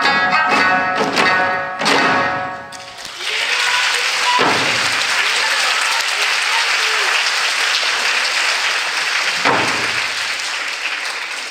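The end of an eisa drum dance: Okinawan folk music with drums and a sung or sanshin melody stops about three seconds in. Then audience applause follows, broken by two heavy thumps about five seconds apart.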